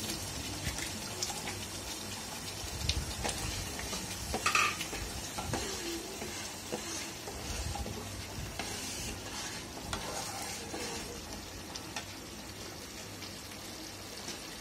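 Thick masala gravy bubbling and sizzling in a nonstick kadhai while a spatula stirs it, with scattered scrapes and taps against the pan, the loudest about three to five seconds in.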